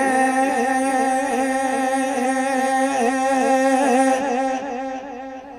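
A man's voice singing a naat through a stage microphone and PA, holding one long note with a regular wavering ornament. It fades out about four to five seconds in.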